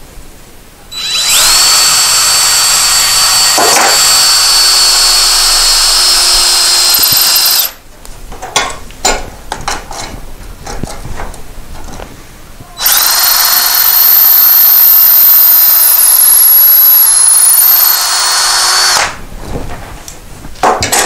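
Cordless drill with a small bit boring two pilot holes into a wooden newel post: two steady runs of about six seconds each, the motor's whine rising as it spins up. Clicks and knocks fall between the runs as the drill and guide are repositioned.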